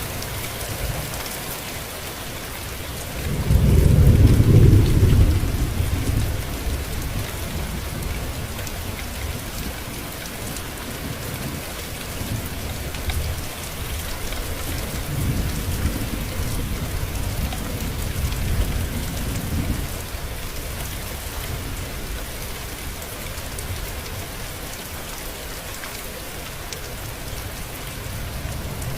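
Steady rain falling, with a loud roll of thunder a few seconds in that fades over about three seconds, and a weaker, longer rumble of thunder in the second half.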